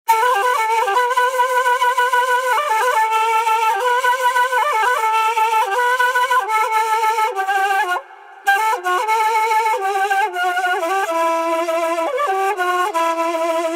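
Solo kaval (end-blown shepherd's flute) playing a melody of held, wavering notes with quick turns between them, breaking off briefly about eight seconds in.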